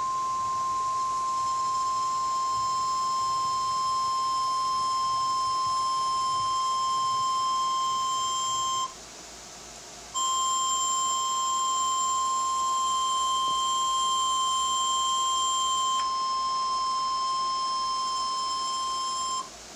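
NOAA Weather Radio 1050 Hz warning alarm tone, the single steady alert tone that opens a weather warning or watch broadcast, here for a severe thunderstorm watch expansion. It sounds for about nine seconds, breaks off for a moment, then sounds again for about nine seconds.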